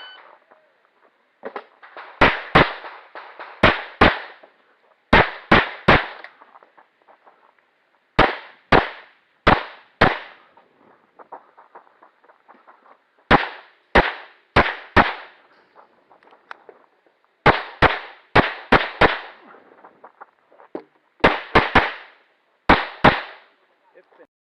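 Stock service pistol fired in an IDPA stage: about two dozen sharp shots, mostly in quick pairs and some triples, with short pauses between groups and a longer pause about ten seconds in.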